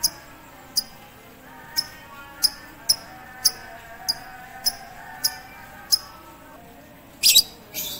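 Lovebird giving about ten short, shrill chirps, spaced half a second to a second apart, then two louder, harsher calls near the end, over fainter warbling birdsong.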